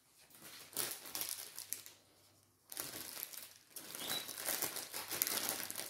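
Cross-stitch kit packaging crinkling and rustling as it is handled, with a brief pause a little after two seconds in and steadier crinkling after.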